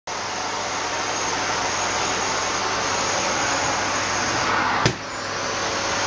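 Vacuum cleaner running steadily as its floor nozzle is worked over a wooden floor. About five seconds in there is a single sharp knock, after which the sound briefly drops and builds back up.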